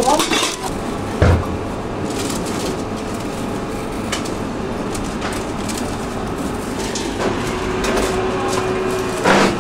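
Professional kitchen background: a steady din, with a low knock about a second in, scattered small clicks and a louder clatter near the end.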